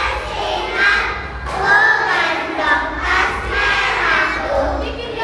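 A group of young girls singing a song together, their children's voices blended like a small choir.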